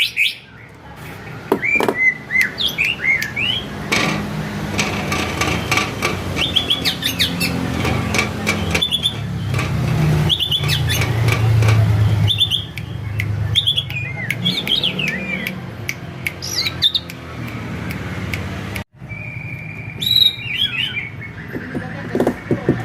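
Male murai songbird singing a long run of short whistled phrases, notes sliding up and down, over a steady low rumble.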